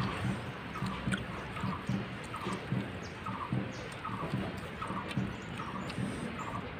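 Close-up eating sounds of people eating rice with their fingers from steel plates: chewing and squishing of rice and curry, over a steady background noise. A short higher-pitched sound repeats regularly, a little more than once a second.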